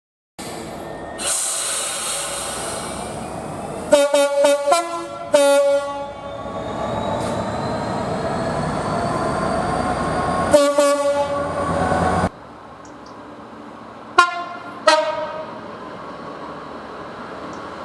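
Locomotive air horn sounding in short blasts over the steady rumble of passing trains: a cluster of quick blasts about four to five seconds in, another around ten and a half seconds, and two brief toots near fourteen to fifteen seconds.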